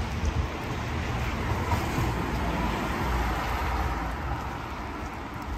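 A car passing on a rain-wet road: tyre hiss that swells in the middle and then fades.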